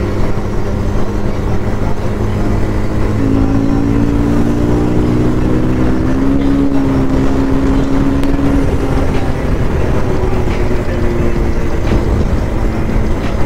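Bajaj Pulsar 220F's single-cylinder engine running while the bike cruises, its pitch rising gently a few seconds in and then easing, under a steady rush of wind over the microphone.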